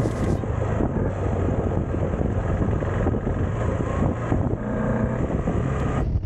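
KTM 390 Adventure's single-cylinder engine running at a steady cruise, with wind rushing over the microphone.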